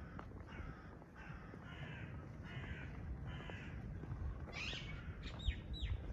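A bird calling over and over, a little under two calls a second, for the first few seconds, then two quick calls that fall steeply in pitch near the end, over a low wind rumble.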